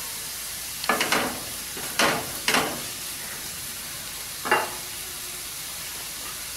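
Stir-fried vegetables sizzling steadily in a nonstick kadai, with a wooden spatula scraping and tossing them in four or five short strokes spread over the first five seconds.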